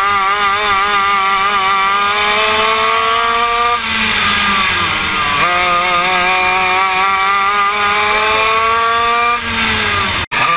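Go-kart engine heard from on board under hard acceleration, its pitch climbing steadily, dropping sharply about four seconds in as it lifts for a corner, then climbing again and dropping once more near the end. The sound cuts out for an instant just before the end.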